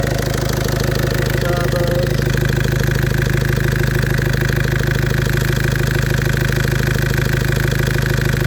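VW Caddy engine running steadily at idle, its turbo's solenoid and vacuum lines just sorted. A faint higher whine sits above the engine note from about two seconds in.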